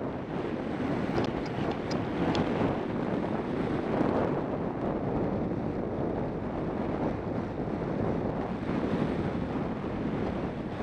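Wind buffeting the microphone while an ATV runs steadily along a gravel trail, with its engine and tyre noise under the rush. A few small ticks of gravel come one to two and a half seconds in.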